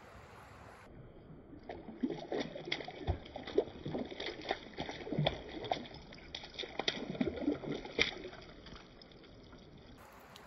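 A fish thrashing at the surface of a pond, a rapid, irregular run of sharp splashes lasting about seven seconds before the water settles.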